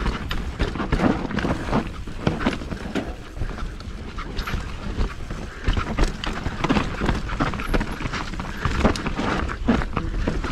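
Mountain bike being ridden down a dirt trail. The tyres rumble on the ground, and the frame and chain give off an irregular run of knocks and clatters over the bumps.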